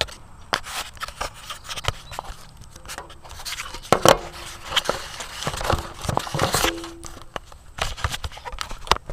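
Hand shears snipping branches, a run of irregular clicks and snips mixed with rustling of needles and twigs.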